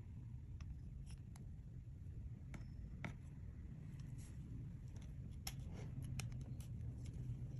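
Clear slime being worked by hand, giving small irregular clicks and pops over a steady low hum.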